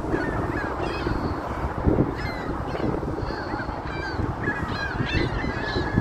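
A flock of gulls calling: many short, overlapping squealing calls, some dropping in pitch, over a steady low rushing noise.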